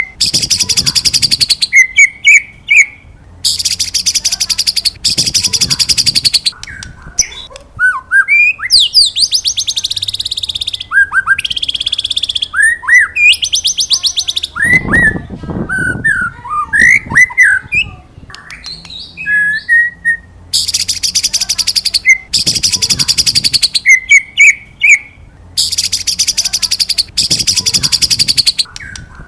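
White-rumped shama (murai batu) singing: loud, buzzing rattled trills of about a second and a half each, repeated many times and alternating with clear, sliding whistled notes, in the 'wit wit cerrrr' pattern.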